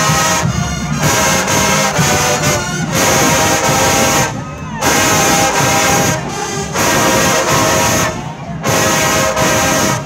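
A marching band's brass section of trombones and trumpets playing loud chords in short phrases, with brief rests between them.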